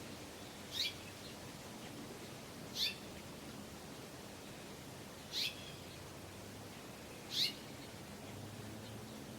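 House finch chirping: four short, high calls, each sliding quickly downward in pitch, spaced about two seconds apart.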